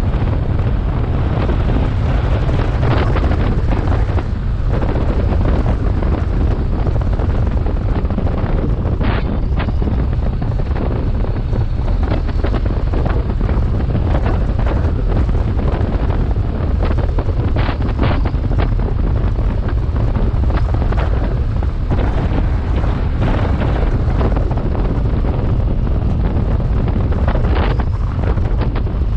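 Wind buffeting the microphone of a BMW R 1250 GS motorcycle on the move, over the low rumble of its boxer-twin engine, with a few short sharp noises along the way.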